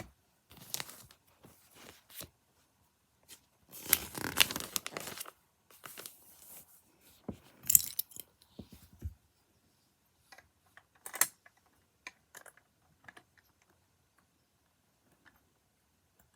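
Lego building handled on a table: crinkly, rustling bursts with small plastic clicks, coming in separate spells, the longest and loudest about four seconds in, then mostly quiet for the last few seconds.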